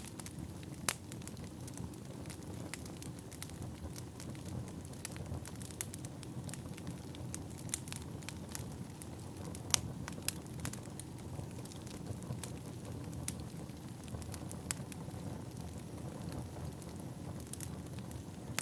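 Firewood burning: a steady low rush of flames with irregular sharp crackles and pops. The loudest pops come about a second in and about ten seconds in.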